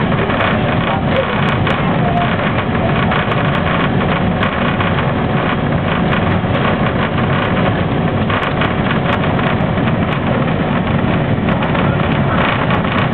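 Steady cabin noise aboard a Boeing Jetfoil 929-100 under way: the even rushing drone of its gas turbines and waterjets, heard through the hull and windows, with a faint steady hum running through it.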